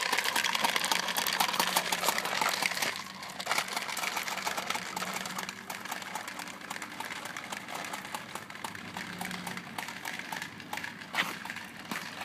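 Plastic corn-popper push toy rolled across concrete: its balls pop and clatter rapidly inside the clear dome as the wheels turn, loudest for the first three seconds, then steadier and a little quieter.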